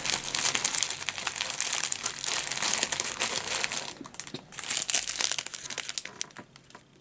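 Small plastic zip bags of diamond-painting drills crinkling as they are handled and sorted, busiest for the first few seconds, with another short burst of crinkling around the fifth second before it thins out near the end.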